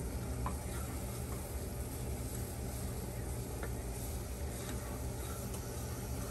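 Minced garlic sizzling in a frying pan as a wooden spatula stirs it, with a few faint taps and scrapes of the spatula. A steady low hum runs underneath.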